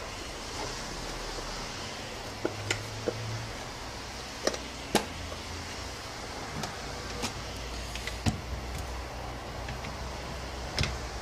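Scattered light clicks and taps from small repair tools working on a smartphone during disassembly, about a dozen over several seconds, over a steady low hum.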